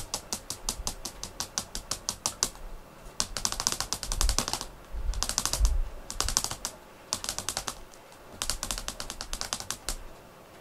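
Rapid light clicking or tapping, about eight to ten clicks a second, in several runs of a second or two with short pauses between them.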